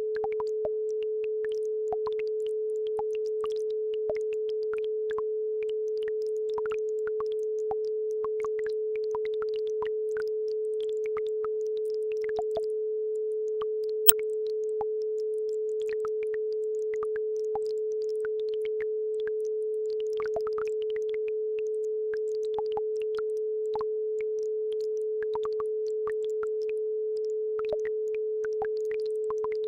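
A steady 432 Hz sine tone holds without a break, with faint scattered drips and trickles of a babbling brook behind it. One sharp click comes about halfway.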